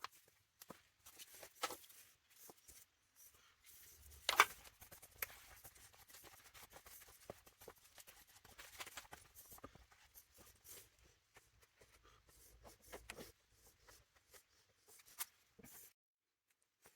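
Faint, scattered scraping and clicking of fibreglass body putty being mixed and spread into the low spots of a repaired fibreglass panel, with one sharper knock about four seconds in.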